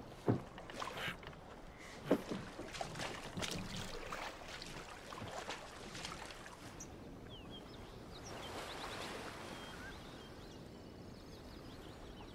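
Wooden fishing boat being worked: scattered knocks and clatter of wood and gear, with water lapping. It then settles into a quieter steady wash with a few faint high chirps.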